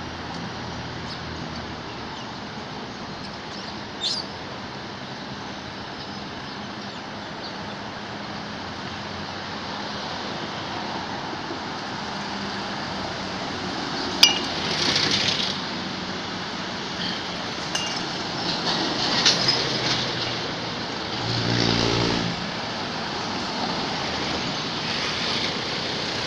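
Steady outdoor background noise, like distant traffic, slowly growing louder, with a few sharp clicks and a short low hum about 21 seconds in.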